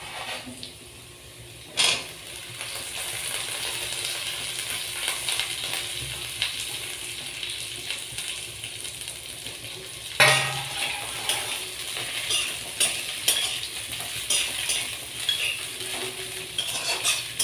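Chopped taro stems going into hot oil in a kadai, sizzling, with a clatter about two seconds in and a louder one about ten seconds in. After that a spatula clinks and scrapes against the pan as the stems are stirred in the oil.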